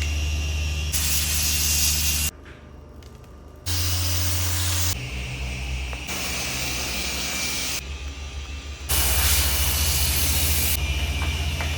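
A motor-driven machine running with a steady low hum under a loud spraying or blowing hiss, in several short clips cut together, with a much quieter gap between two of them.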